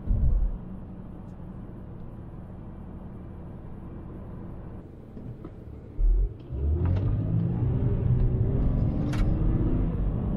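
BMW E90 328i's inline-six engine and road rumble heard from inside the cabin. About six and a half seconds in, the engine note climbs and grows louder as the car accelerates, then stays up. There is a low thump at the start and another just before the rise.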